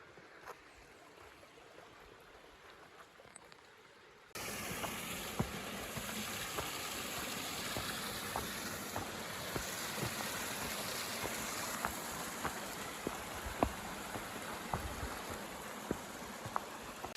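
Quiet with a few light ticks, then about four seconds in the sound cuts abruptly to the steady rushing of a creek's flowing water, with scattered small clicks through it.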